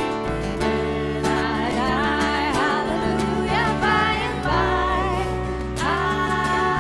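Live worship music: a woman singing lead over strummed acoustic guitars and electric bass.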